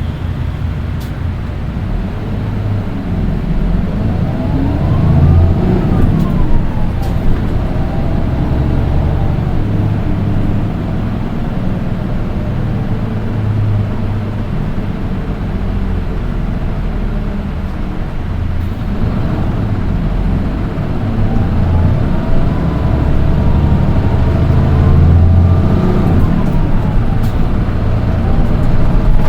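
Nissan Diesel Space Runner RM820 city bus on the move: diesel engine running with a low rumble, plus a high-pitched whine that rises and falls with engine speed twice. This unusual shrill engine note sets this one bus apart from the others of its type.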